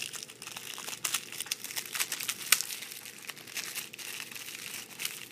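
A fortune cookie's plastic wrapper crinkling as fingers squeeze and knead it, with the crushed cookie inside, in an irregular run of crackles. One sharp crack about two and a half seconds in is louder than the rest.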